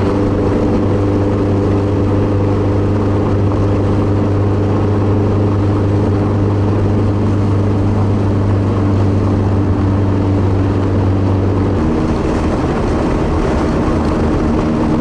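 Nissan 240SX's swapped SR20DET turbo four-cylinder with a straight-piped exhaust, heard from inside the cabin while driving, holding a steady drone. About twelve seconds in, the engine note changes and its deepest tone drops away.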